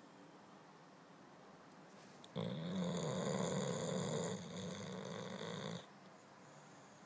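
Sleeping boxer dog snoring: after a pause, one long snore of about three seconds begins a couple of seconds in, growing a little softer in its last second before it stops.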